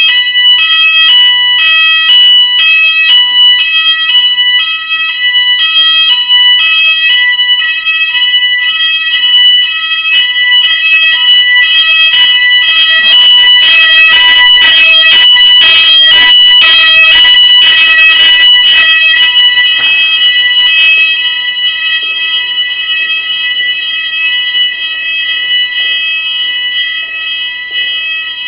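Fire alarm sounders going off during a smoke detector test: a steady shrill tone with a lower tone pulsing about twice a second. A harsh crackling joins from about 12 to 21 seconds in, when the alarm is at its loudest, and it sounds somewhat quieter after that.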